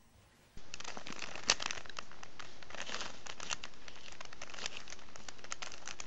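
Plastic Rubik's Cube being turned by hand: a run of irregular clicks and clacks as its layers are twisted, starting about half a second in.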